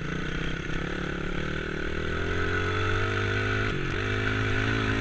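Small dirt bike's single engine running under throttle while being ridden; its pitch climbs steadily, drops briefly a little under four seconds in, then climbs again.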